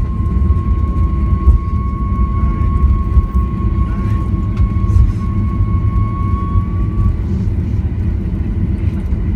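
Boeing 737-800 rolling out on the runway after touchdown, heard inside the cabin: a steady low rumble from the wheels and airframe, with a thin engine whine that fades away about seven seconds in.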